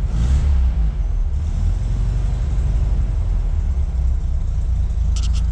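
VW Beetle's air-cooled flat-four engine running steadily just after a cold start; its carburettors have no choke, so it is running cold on the throttle.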